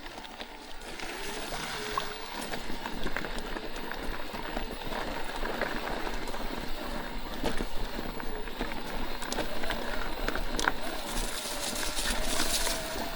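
Electric mountain bike riding over a rough dirt trail: steady tyre and riding noise with scattered knocks and rattles from the bike, and a faint wavering whine from the e-bike's motor.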